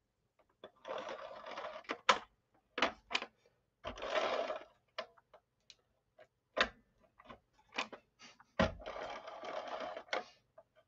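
Handheld adhesive tape runner drawn across cardstock in three strokes of about a second each, rasping as the roller feeds out the glue tape, with sharp clicks as it is set down and lifted between strokes.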